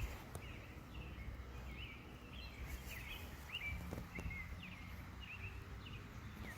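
Small birds chirping, many short quick calls one after another, over a low outdoor background rumble.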